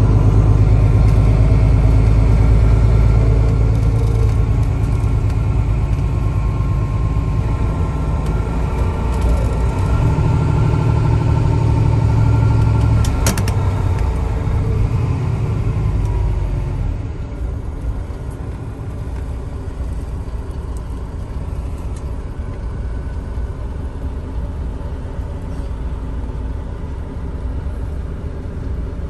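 City bus engine and ride rumble heard from inside the passenger cabin, loud with a steady low engine note, dropping to a quieter rumble about halfway through. A single sharp click about 13 seconds in.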